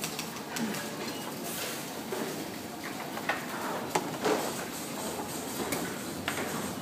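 Assembly-floor background noise: a steady din with a few short, sharp clicks and clatters of parts being handled at the workbenches.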